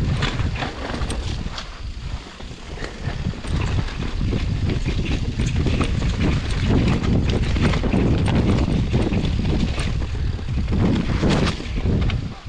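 Bicycle being ridden over a rough trail: wind buffets the microphone in a steady low rumble, with a stream of small clicks and rattles from the bike and tyres on the ground.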